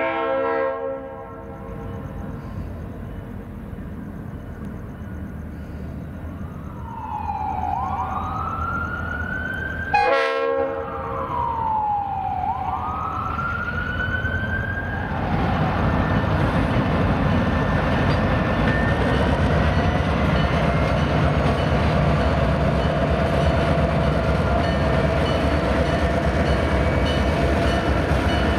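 Diesel freight locomotives approaching: a horn chord trails off about a second in, with a short horn blast about ten seconds in. A siren wails twice in the background around the middle. From about halfway on, the locomotives' diesel engines run loud and steady as they pull past close by.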